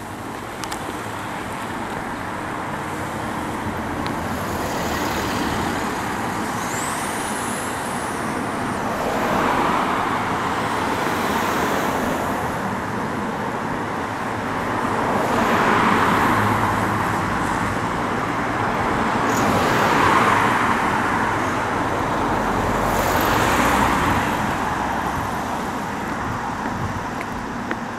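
Road traffic: cars passing on the road alongside, each one swelling up and fading away, about four passes over a steady background of traffic noise.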